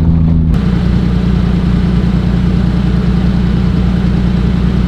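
1996 Honda Acty's three-cylinder engine with an aftermarket race exhaust, running steadily and heard from inside the cab. About half a second in, the sound changes abruptly to a steady low hum.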